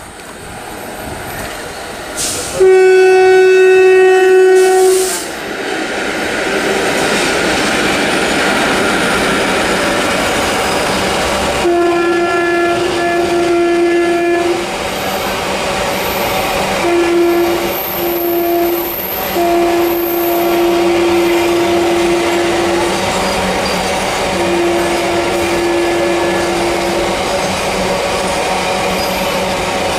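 WAG-7 electric locomotive's horn sounds one long, loud blast about three seconds in. The train's container wagons then run past with steady rolling rumble and wheel clatter, and several more drawn-out horn blasts sound over it.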